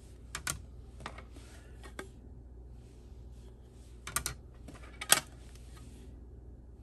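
Hard plastic PSA graded-card slabs clicking against each other and the desk as they are picked up and set down on a pile: a handful of sharp clicks, the loudest about five seconds in.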